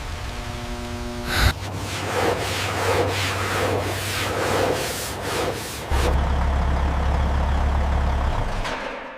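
Restoration shop work on a rusted truck: a sharp metallic clank about a second and a half in, then repeated rasping strokes like sanding or grinding over a steady low machine hum that deepens about six seconds in, all fading out at the end.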